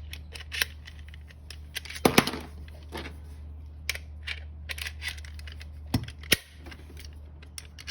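Metal mortise-lock hardware being handled and fitted: a series of sharp metallic clicks and knocks, loudest about two seconds in and again near six seconds.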